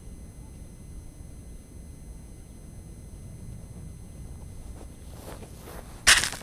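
Wind rumbling on the microphone of a quadcopter's camera resting in grass, with a faint steady high whine. Near the end comes rustling, then a brief loud scrape and knock as the landed quadcopter is handled and picked up.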